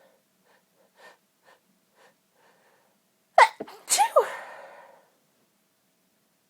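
A woman sneezing while trying to stifle it. Faint quick breaths come about twice a second as the sneeze builds, then a little over three seconds in come two sneezes close together: a sharp clipped burst, then a louder voiced one that falls in pitch and trails off.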